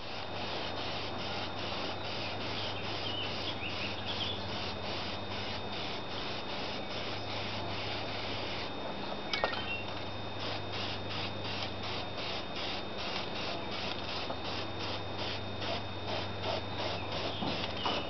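Sheet-metal side panel of a Case 1370 tractor being sanded by hand: steady rhythmic rubbing strokes, about three a second, over a low steady hum.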